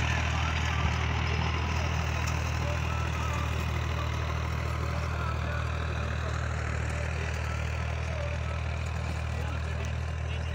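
Tractor engine running steadily as it pulls a rotary tiller through the soil: a constant low drone that grows slightly fainter.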